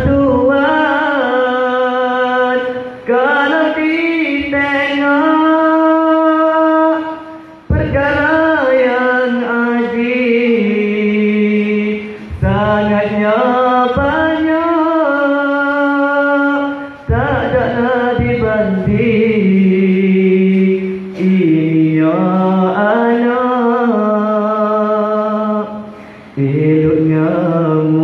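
A man's voice chanting a Malay maulid recitation in praise of the Prophet, in long, wavering sung phrases with short breaks for breath every few seconds.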